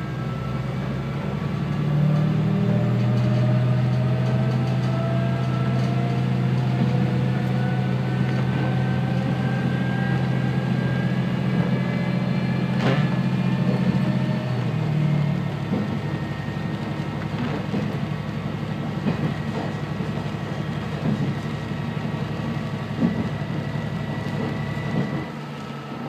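Diesel railcar heard from on board, its engine droning under power while a whine rises slowly in pitch as the train gathers speed. About halfway through the engine drone drops away, leaving the wheels running on the rails and the whine still climbing.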